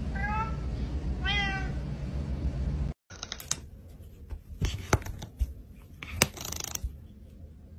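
Cat meowing twice, two short calls about a second apart over a low steady rumble. After a sudden cut about three seconds in come a few quieter sharp clicks and a brief scratchy rustle.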